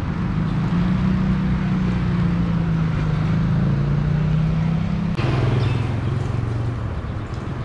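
An engine running steadily, its hum dropping to a lower pitch about five seconds in.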